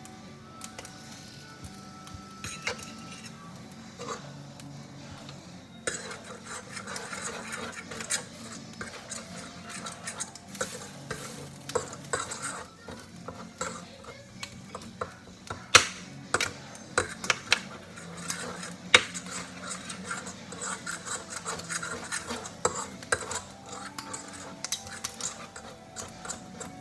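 A cooking utensil stirring and scraping food in a pan, with many quick clicks and taps of metal against the pan and a faint sizzle; the tapping grows busier after the first few seconds.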